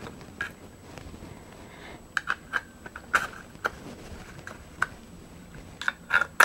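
Metal parts of a Comblain falling-block rifle action (breech block, lever and hammer) clicking and clacking as they are fitted by hand into a half-receiver replica model. There is a run of sharp clicks about two seconds in and another quick cluster near the end.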